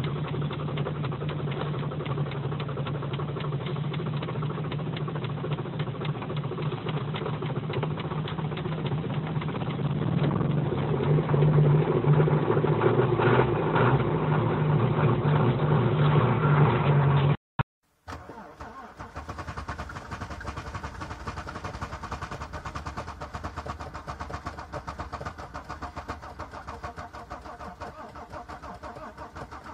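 Diesel car engine heard from inside the cabin, idling at about 1000 rpm and then held higher at around 2000 rpm from about ten seconds in, running louder. After an abrupt cut, a quieter, steady, evenly pulsing engine sound from a snow-covered Mercedes W124.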